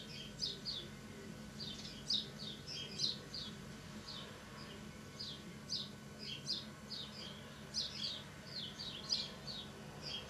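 A small bird chirping over and over: short, high chirps in quick clusters of two to four, about every second, over a faint steady low hum.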